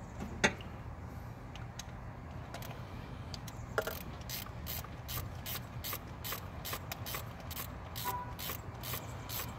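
Ratchet wrench clicking steadily at about three clicks a second as a spark plug is run back into the cylinder head and tightened. There is a sharp knock about half a second in and another just before the clicking starts.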